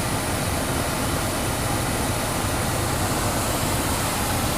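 Steady hum and rush of an idling car engine with its air-conditioning fan running.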